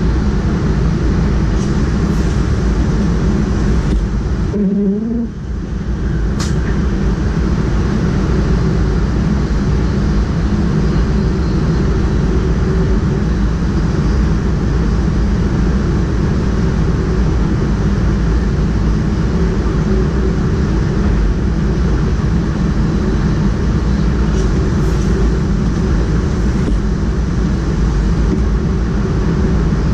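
Steady running noise of a double-deck push-pull train heard from the driver's cab: a dense rumble of wheels on rails and the train underway. About five seconds in the noise briefly dips and a short rising tone comes through.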